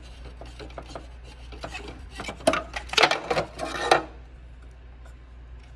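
Scraping, rubbing and clicking of the projection TV's parts being handled and pulled apart, busiest a little past halfway, over a steady low hum.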